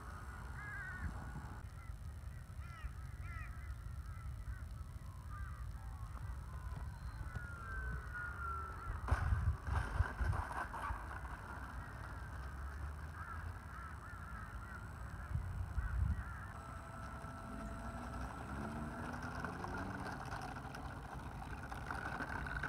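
Electric motor of an E-flite T-28 Trojan RC plane whining steadily in flight and on its landing approach, with birds calling and wind rumbling on the microphone. Louder gusts of wind hit the microphone about nine and sixteen seconds in.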